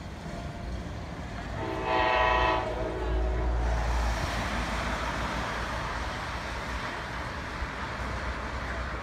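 A train horn sounds one chord blast of several tones at once, about a second and a half long, starting about a second and a half in, over a steady low rumble.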